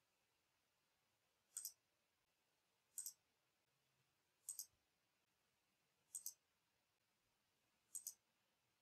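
Five faint computer mouse clicks, spaced about one and a half seconds apart, each a quick double tick.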